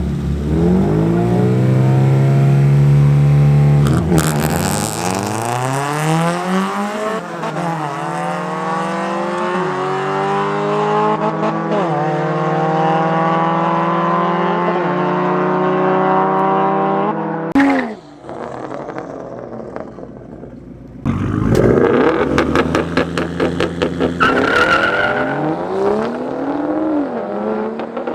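Race car engine held at high revs, then launching hard with a burst of tyre noise about four seconds in. It pulls through several gears, the pitch climbing and dropping back at each shift. After a sudden drop to a quieter stretch, an engine comes back in loud, revving up and down.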